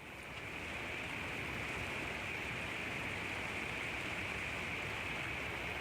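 Steady rain falling, fading in over the first second and then holding an even hiss.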